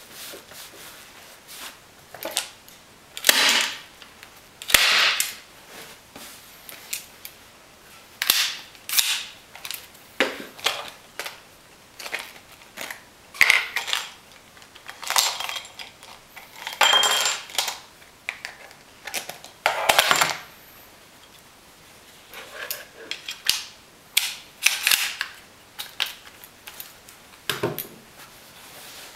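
Hand-squeezed staple gun firing staples through upholstery fabric into a seat base: a dozen or more sharp snaps at irregular intervals, some in quick pairs, with short pauses between while the fabric is pulled tight.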